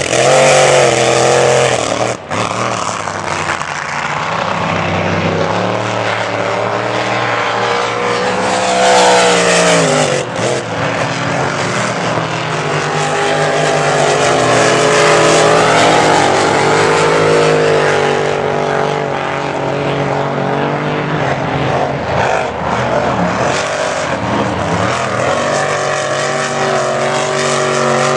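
Supercharged engines of displacement-class race boats running flat out as the boats pass, the engine note rising and falling with each pass.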